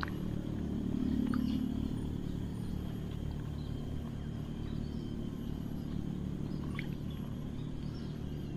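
Low, steady motor hum, swelling slightly about a second in, with a few faint bird chirps over it.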